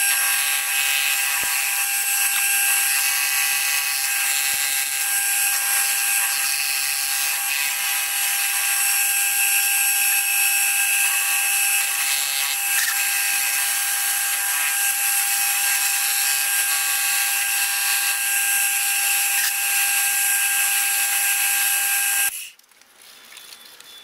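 Milling machine end mill squaring up a brass bracket, with the footage sped up eight times, so the spindle motor and cutting come out as a loud, steady high-pitched whine. It cuts off about 22 seconds in.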